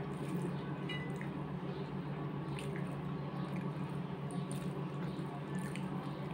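Hands mixing and squeezing rice with curry on ceramic plates: soft wet squishing with a few faint clicks against the plate, over a steady low hum.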